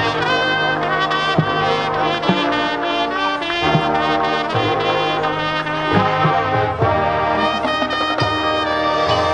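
High school marching band playing a Motown arrangement: the brass section plays loud sustained chords over low held brass notes, with occasional drum hits.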